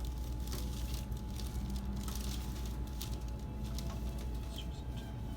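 Soft rustling and brushing of hands and clothing against a padded treatment table as a patient is stretched, with scattered light scuffs over a steady low hum.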